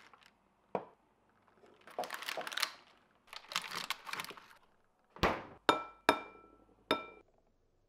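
Kitchen handling sounds: a clear plastic egg carton and plastic-wrapped food rustling and crackling, then four sharp knocks of crockery, the last three with a short ringing tone.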